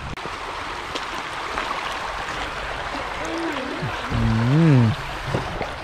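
Steady rushing of a wide stream flowing over a rock bed. About three seconds in, a person's voice gives a drawn-out sound that glides up and then down for over a second.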